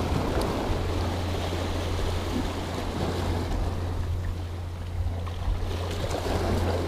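Surf washing against a rocky shore in rough sea, with wind buffeting the microphone as a steady low rumble; the wash swells about a second in and again near the end.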